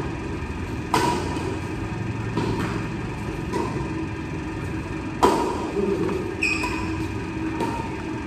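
Badminton rackets hitting a shuttlecock in a doubles rally: several sharp hits a second or so apart, the loudest about five seconds in, each ringing briefly in the large hall's echo. A short squeak sounds just after the loudest hit.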